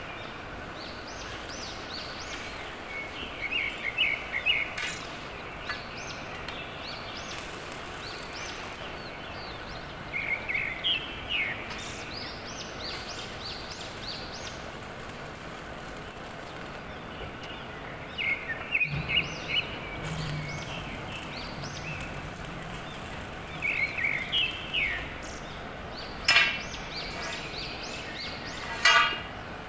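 Small birds chirping in short, quick bursts of rising and falling notes, repeated several times over a steady background. In between comes a thin crackle from a stick-welding (SMAW) arc, and near the end two sharp clicks.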